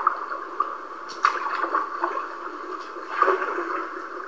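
Floodwater sloshing and gurgling, with a few sharp knocks, in thin, muffled old-videotape sound.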